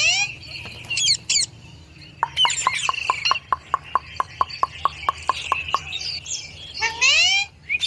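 Indian ringneck parrot calling: short rising squawks, then a run of quick, even clicking notes about five a second, with chirps over it, lasting over three seconds, and another rising squawk near the end.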